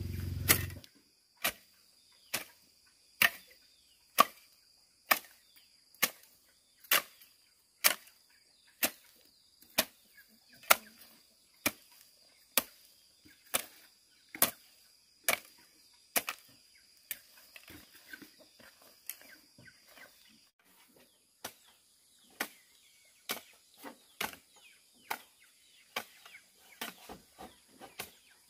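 A hand tool striking steadily, about one stroke a second, the strokes growing fainter and less regular in the second half. A steady high-pitched hum runs behind them until about two-thirds of the way through.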